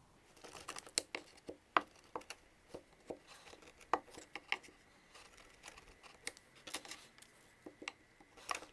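A flat blade slicing through iron-on wood veneer edge banding, cutting the overhang flush with a panel's end against a cutting mat: a string of irregular crisp clicks and snicks.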